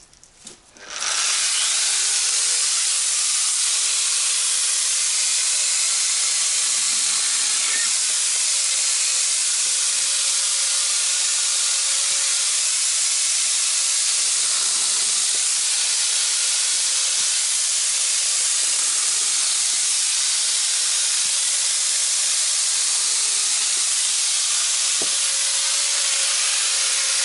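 Angle grinder with a chainsaw bar-and-chain attachment switching on about a second in and running steadily as the chain cuts through a log, a loud hissing whine with a faint tone that sags now and then under load. The chain is running dry, without chain oil.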